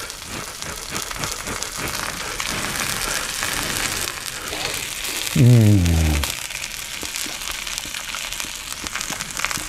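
Sausages sizzling on a hot stainless-steel plancha: a steady crackling hiss. About five seconds in, a man gives a short, low, falling 'mmm' while eating.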